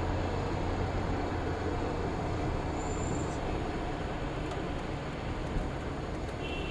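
Steady vehicle driving noise picked up by a dashcam: a low engine hum under an even wash of road and tyre noise.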